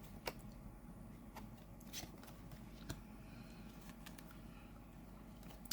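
Oracle cards being handled during a flip-through: a few faint, short clicks and rustles of card stock as the next card is brought forward.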